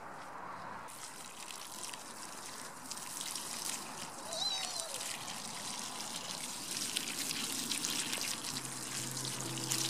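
Water pouring in a steady stream from a plastic watering can's spout, splashing onto soil around a small herb plant. Soft background music comes in near the end.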